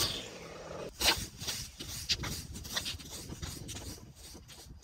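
A petrol string trimmer cuts out and its noise dies away at the very start. About a second in comes a sharp knock, then irregular light knocks and scuffs of boots on grass and concrete.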